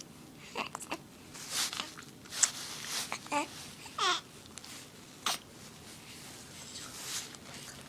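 Baby vocalising in short coos and squeals with wavering, falling pitch, between sharp breathy bursts; the loudest burst comes about two and a half seconds in.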